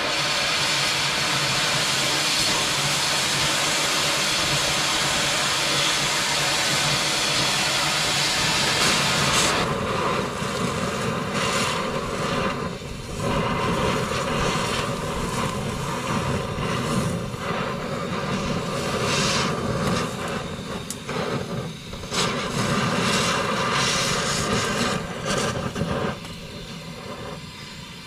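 Cutting torch hissing steadily as it burns through the steel bolts holding a dump bed to a truck frame. The rush of the cutting jet comes and goes in short breaks and drops off near the end.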